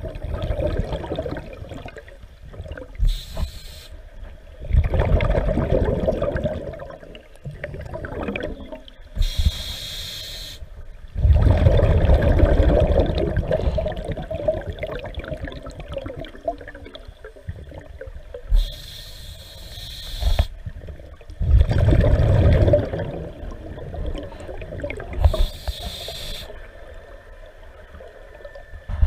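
Scuba diver breathing through a regulator underwater: a short hiss on each inhale, then a longer rumble of exhaust bubbles on each exhale, about four breaths.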